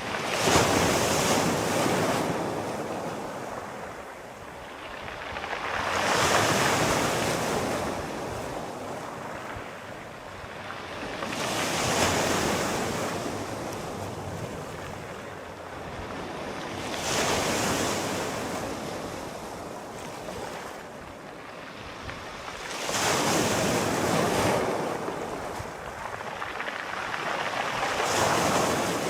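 Sea waves breaking and washing in a slow, even rhythm, a surge of surf about every five to six seconds.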